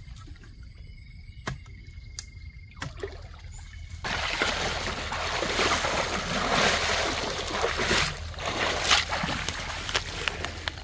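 Splashing and sloshing of shallow muddy water as a man thrashes with his arms to grab a frog. The splashing starts suddenly about four seconds in, after a few quieter seconds with a few sharp clicks.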